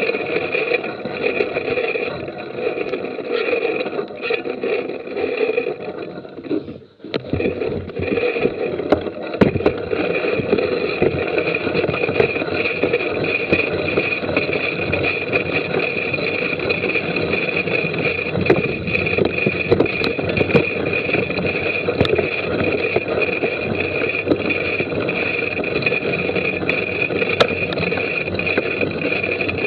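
Mountain bike riding on a dirt forest trail, heard from a bike-mounted action camera: steady wind and tyre rumble with scattered clicks and rattles from bumps. About seven seconds in, the noise briefly drops away.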